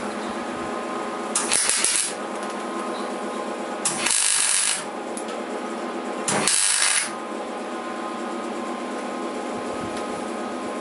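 Electric arc welder laying three short tack welds, each a brief burst of arc crackle lasting under a second, about two and a half seconds apart, over a steady machine hum.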